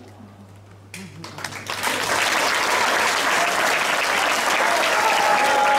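Audience applause: clapping breaks out about a second in and quickly swells to full, steady applause.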